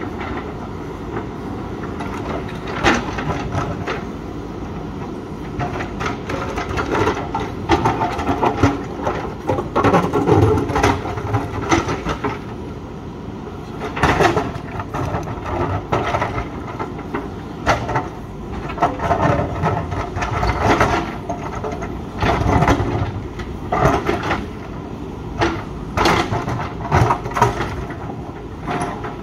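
JCB 3DX backhoe loader's diesel engine working under load, with the bucket repeatedly knocking and scraping against rock and stones clattering.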